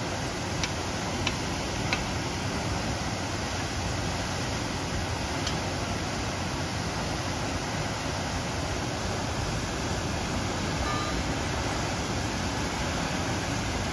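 Water gushing in a steady, unbroken rush from a fire hydrant knocked off by a vehicle, its flow not yet shut off. A few light ticks sound in the first two seconds.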